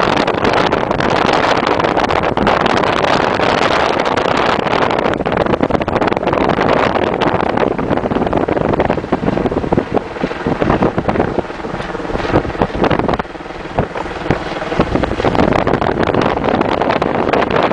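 Wind buffeting the microphone of a camera held at a moving car's window, over the car's road and engine noise; it eases briefly a little past halfway.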